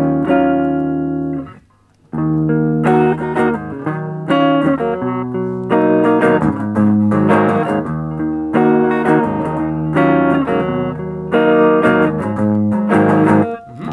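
Electric guitar played through a Marshall Origin 5C 5-watt all-tube combo amp, a series of ringing chords and phrases with a short stop about a second and a half in.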